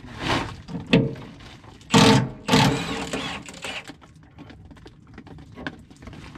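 Metal clanking and scraping as the skidder's steel skid plate is unbolted and let down on its hinge and chain: four loud clanks in the first three seconds, then lighter rattles.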